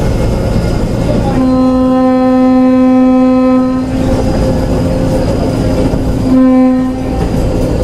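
Excursion train's locomotive horn heard from aboard a passenger car: one long blast starting about a second and a half in, then a short blast near the end, over the low rumble of the train rolling on the rails. It is the long-long-short-long signal blown for a road crossing.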